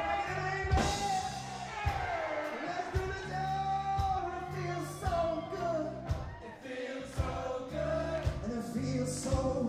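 Live band playing with singing over it: repeated bass notes, steady drum hits and a sung melody line that bends up and down.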